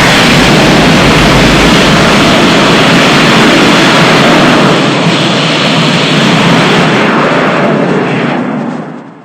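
A MechaGodzilla monster sound effect: a loud, steady rushing blast, jet-like, that starts abruptly and fades away over the last second or so.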